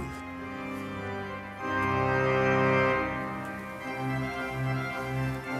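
Background music of sustained organ chords. A louder chord swells in about a second and a half in, and a low bass note pulses about twice a second near the end.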